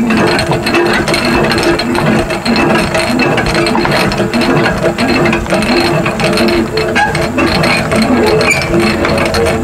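Manual fifth-wheel landing gear being hand-cranked, its gearbox clicking and grinding rapidly and steadily as the new jack legs extend and lift the trailer.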